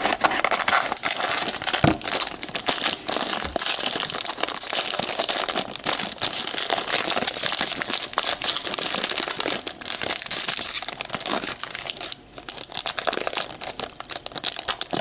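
Plastic shrink-wrap and foil wrapper of a trading-card pack being torn open and crinkled by hand: a steady, dense crackling and tearing, with a brief lull about twelve seconds in.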